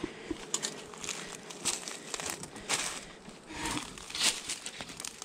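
Dry crinkling and crackling from movement and handling at a beehive, with many small irregular clicks.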